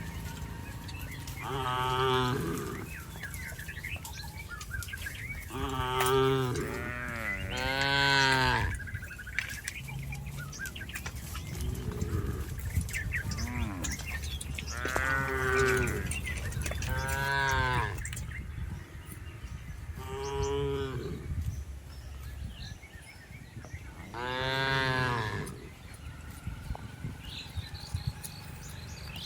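Cattle mooing: about eight separate calls, each about a second long, coming every few seconds.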